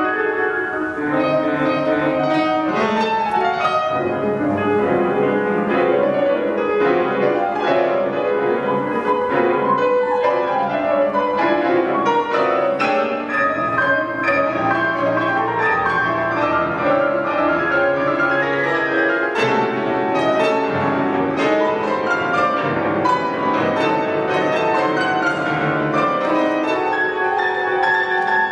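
Two concert grand pianos playing together in a classical two-piano work: a busy texture of many quick notes and chords spread across low and high registers.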